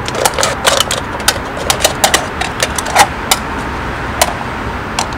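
Thin aluminium beer can being cut in half with a small blade and handled, giving an irregular string of sharp metallic clicks and crinkles over a steady low background rumble.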